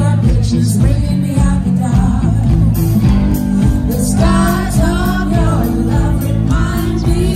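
Live rock band playing through the PA, heard from the crowd: a woman singing over electric guitars, bass and drums. Her singing comes in more strongly about four seconds in.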